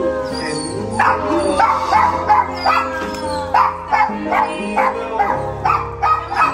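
A dog barking repeatedly in short, high barks, about two a second, starting about a second in, over background music with steady held tones.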